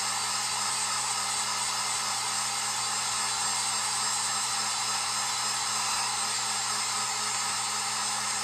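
Handheld electric heat gun blowing hot air steadily, a constant rush of air over a low steady hum, drying a fresh coat of craft paint on a wooden tag.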